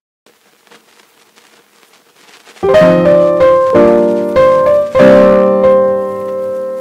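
Background piano music: after a couple of quiet seconds, a few piano chords are struck in turn, each ringing and fading, the last one dying away near the end.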